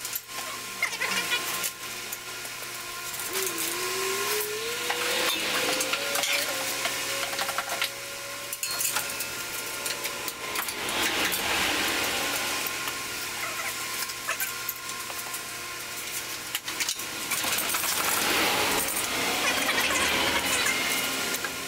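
Metal clinking and scraping of hand tools on engine parts, many small clicks, while the engine on the hoist is worked free of seized transmission dowel pins. A squeak rises in pitch a few seconds in and then holds.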